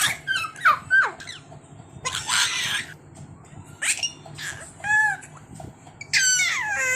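A baby squealing and shrieking: short, very high-pitched cries that slide down in pitch, with a breathy huff about two seconds in and a louder run of squeals near the end.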